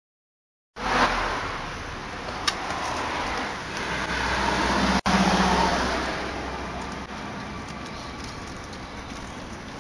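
Road traffic noise: a car passing, its sound rising to a peak about halfway through and then fading, over a steady hum of traffic.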